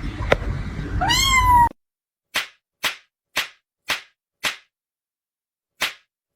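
A cat meows once about a second in, a short call rising then falling in pitch. After a sudden cut, a series of short, sharp noisy sounds follows, about two a second, with a pause before the last two.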